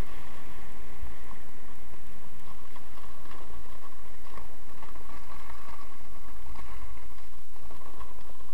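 Steady wind rush on the microphone of a moving skier, with the hiss and light scraping of skis sliding over packed snow.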